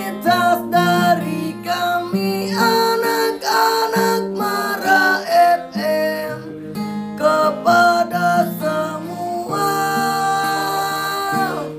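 Background music led by a strummed acoustic guitar, with a long held chord near the end.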